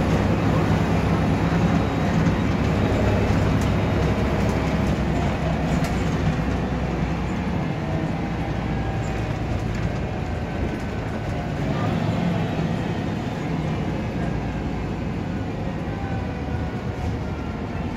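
Volvo B7RLE single-deck bus on the move, heard from inside the passenger saloon. Its diesel engine runs steadily under road and tyre noise, with occasional light rattles, and the sound slowly eases off.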